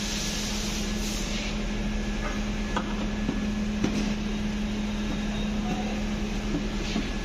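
Steady low mechanical hum over even background noise, with a few faint knocks.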